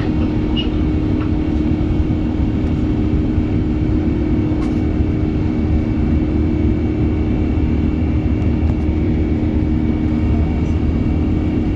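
Steady cabin noise inside an Airbus A380 airliner: an even rumble of engines and airflow with a constant low hum that holds unchanged throughout.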